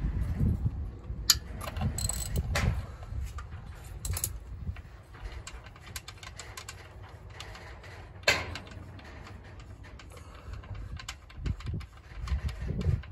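Scattered clicks and metal clinks of hand tools and parts being handled during engine removal work, over low rumbling handling noise.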